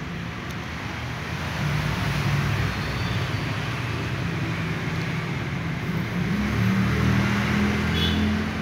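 Low engine rumble of road traffic, swelling about two seconds in and louder again from about six and a half seconds until near the end.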